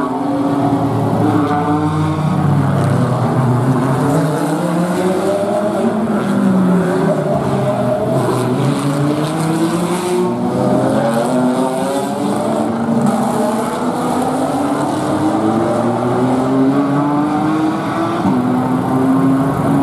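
GT race car engines running hard around the circuit, several at once, each pitch climbing and then dropping back again and again as the cars accelerate, shift gears and brake.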